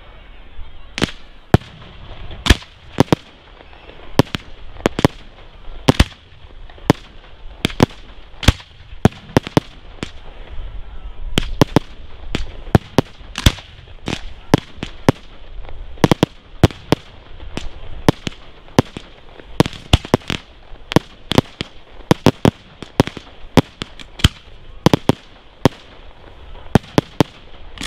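Aerial fireworks display: shells going off in a rapid, irregular series of sharp bangs, often one or two a second, over a low rumble.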